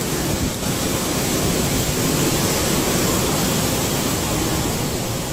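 Steady, dense rushing noise of typhoon wind and churning water, with no distinct events.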